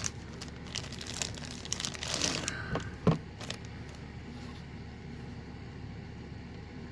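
Rustling and small clicks of a folding knife being handled and taken out of its pouch, with one sharp click about three seconds in, then only a faint steady background hum.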